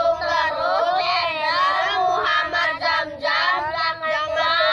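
A child's high voice singing continuously, with a wavering pitch.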